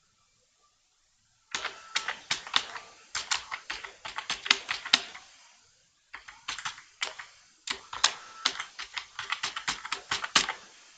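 Typing on a computer keyboard: rapid runs of keystroke clicks starting about a second and a half in, with a short pause around the middle.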